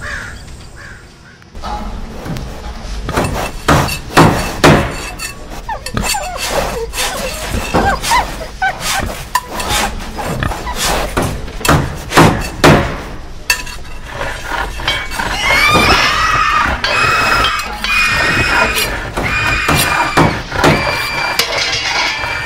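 A run of loud bangs and crashes, some with a breaking or shattering quality, the sharpest a few seconds in and again about halfway. From about two-thirds of the way through, high held pitched tones join in over the knocks.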